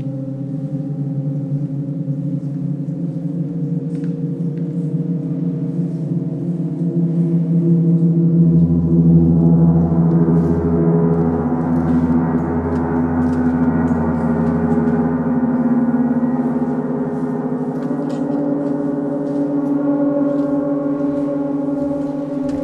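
Several large suspended gongs played together, a continuous shimmering wash of many overlapping ringing tones. About eight seconds in the sound swells louder and a deep low hum joins it, and the dense wash holds to the end.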